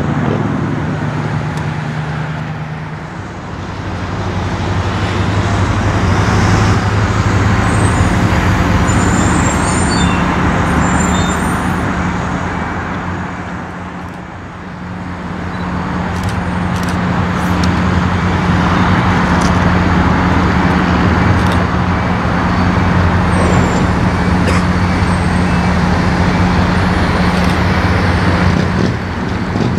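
Diesel locomotive engine running with a steady low drone as the locomotive moves slowly along the track; the sound dips briefly twice.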